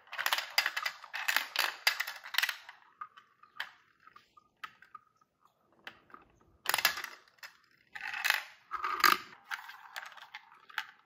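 Plastic balls of a VTech Marble Rush marble run rolling and clattering through plastic track and spiral funnels. There is a dense rattle for the first few seconds, a brief steady whir as a ball circles a funnel, then more bursts of clatter as balls drop through and land.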